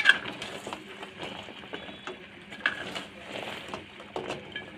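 Metal spoon stirring fried khasta tikri through thick sugar syrup in a kadhai, scraping and knocking against the pan, with the loudest knock right at the start and a few more spread through.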